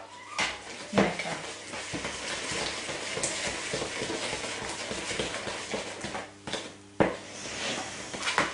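Spatula stirring and scraping wet cake batter of creamed butter, sugar and eggs around a plastic mixing bowl. The scraping is steady, with a sharp knock against the bowl about a second in and again near the end.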